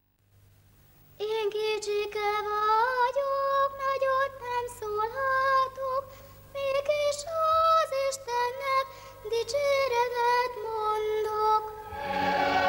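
A young girl singing a melody solo and unaccompanied, in held notes, starting about a second in. Near the end a choir with orchestra comes in.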